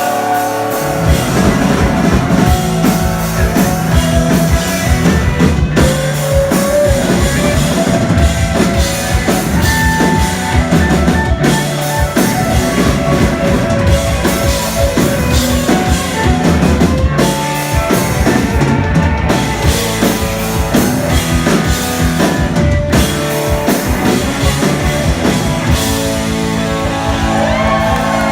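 Live rock band playing an instrumental passage: drum kit beating steadily under electric guitars and bass. Near the end the drumming thins out and the guitars hold ringing chords.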